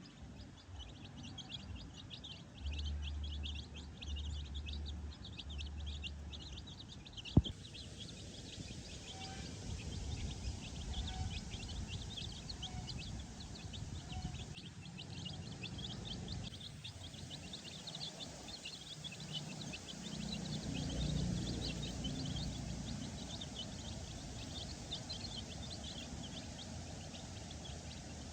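Tiny baby chicks peeping, many short high chirps overlapping without a break. A single sharp click sounds about seven seconds in.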